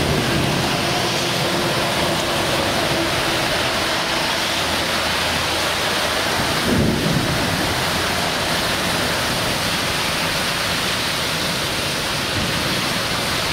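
Heavy rain pouring down in a torrential downpour, a steady even hiss.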